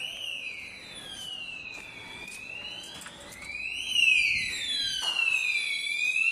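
Electronic sounder of a conventional fire alarm system sounding a wailing siren tone that slowly rises and falls in pitch, about one cycle every four seconds; it gets louder about four seconds in.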